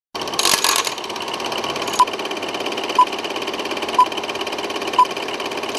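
Old film-leader countdown sound effect: a film projector clattering steadily, with a short beep once a second, four times.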